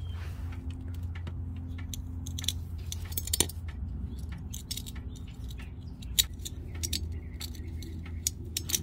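Nitrile-gloved fingers rubbing old engine oil around the rim and gasket of a new spin-on oil filter, giving scattered light clicks and scrapes against the metal filter can. A low steady hum runs underneath.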